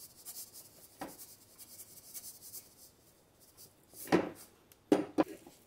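Kitchen utensils knocking and scraping against a frying pan as rice flour is added to a thick jaggery mixture: a soft knock about a second in, a cluster of knocks around four seconds, and two more near the end.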